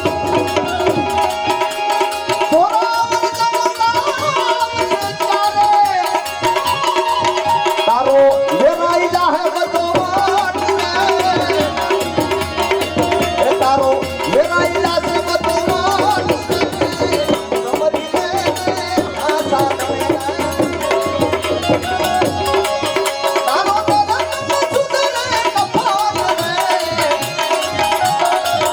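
Gujarati devotional santvani bhajan music: tabla playing a dense, steady rhythm under held notes and a gliding melody line.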